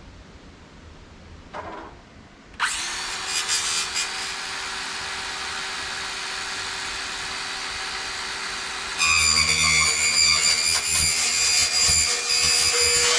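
A power saw switched on about two and a half seconds in and running steadily, then louder and harsher from about nine seconds in as the blade cuts into 3-inch schedule 40 PVC pipe.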